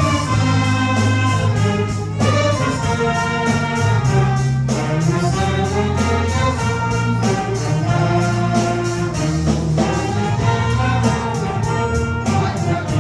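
Band music led by brass horns, with sustained horn lines over a bass line and a steady drum beat.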